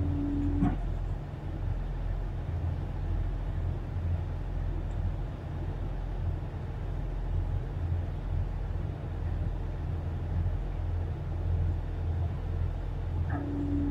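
Tugboat's diesel engines running steadily while towing a coal barge, a low drone heard in the wheelhouse. A brief steady tone sounds near the start and again just before the end.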